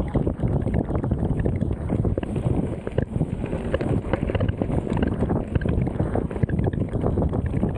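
Wind buffeting the action camera's microphone during a mountain-bike ride, with the bike and tyres rattling over a rough trail in many small knocks.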